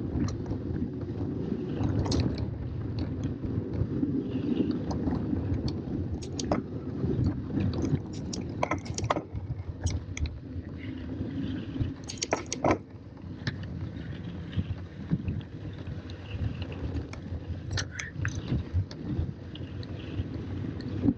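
Tandem mountain bike riding a rough dirt singletrack: steady low wind and tyre rumble on the bike-borne microphone, with scattered sharp rattles and clicks from the bike jolting over rocks and gravel, a cluster of louder knocks about twelve seconds in.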